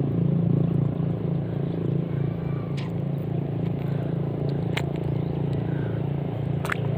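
An engine running at a steady speed, with a few faint sharp clicks about two seconds apart.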